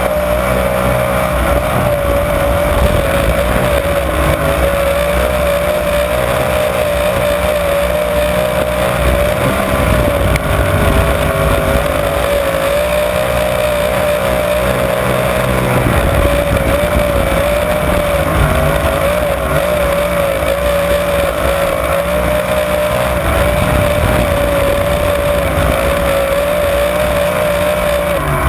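Winged dirt sprint car's V8 engine running at racing speed, heard from an onboard camera in the cockpit. The engine note stays high and steady, dipping and rising slightly with the throttle.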